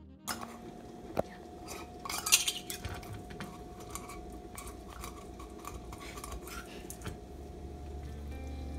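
Garlic being peeled and handled on a wooden cutting board: scattered clicks and knocks, with a cluster of sharp knocks about two seconds in, over a faint steady hum.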